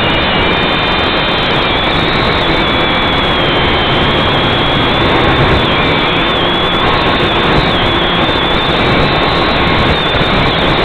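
A small drone's electric motors and propellers whining loudly and steadily, heard close up through its onboard camera. The high whine wavers in pitch as the drone manoeuvres.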